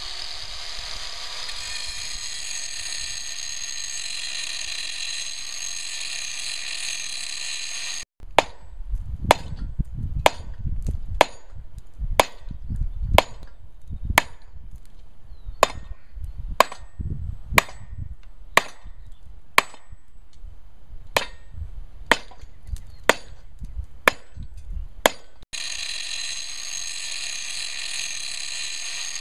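Electric angle grinder running steadily against the cast-iron intake/exhaust manifold of a Mercruiser 3.0 engine, trying to cut through a seized, broken-off bolt. About 8 s in the grinder breaks off and about eighteen sharp metallic hammer blows follow, roughly one a second, as the manifold is beaten loose. The grinder comes back near the end.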